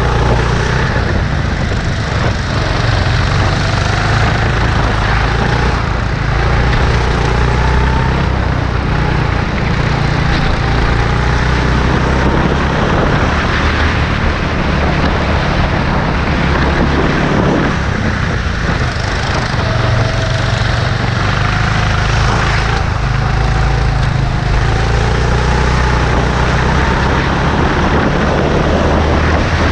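Go-kart engine heard from on board, rising in pitch as the kart accelerates along each straight and dropping back as it slows for the corners, several times over, under a heavy steady low rumble.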